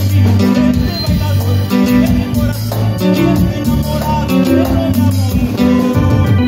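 Live band playing an instrumental passage: guitars, electric bass and drums keeping a steady, rhythmic beat, with no singing.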